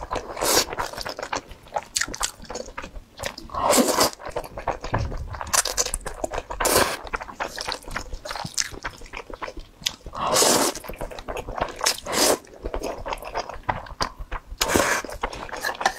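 Close-miked mouth sounds of a person eating spicy fire-chicken noodles: chewing with several loud slurps of noodles, the strongest about 4, 7, 10, 12 and 15 seconds in.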